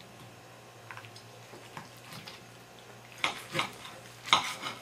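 Steel knife and fork cutting into a roasted Cornish hen on a plate: soft scrapes and clicks at first, then two louder runs of knife-on-plate scraping and clinking in the last second and a half.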